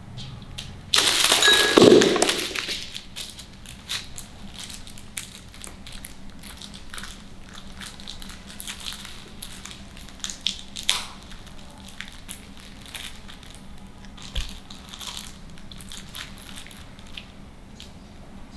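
Crinkling and crackling of sticker sheets being played with, with a loud rustle about a second in and scattered light crackles and clicks after it.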